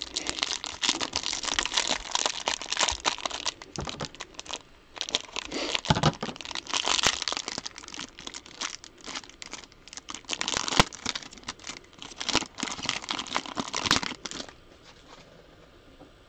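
Plastic wrapping on a box of trading cards being torn open and crinkled by hand, a dense run of crackles and rips that stops near the end.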